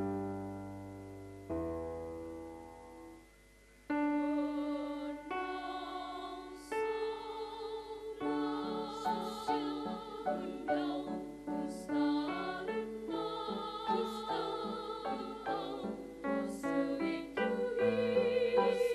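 A keyboard plays two sustained chords that fade away. About four seconds in, a choir comes in singing, with keyboard accompaniment.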